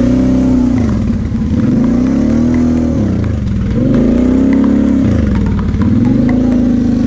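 Kawasaki KFX 700 V-Force quad's V-twin engine revving up and easing off about three times as the throttle is worked over the bumps, with light ticking clatter from the ride.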